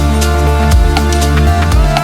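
Electronic background music with a heavy bass and a steady drum beat.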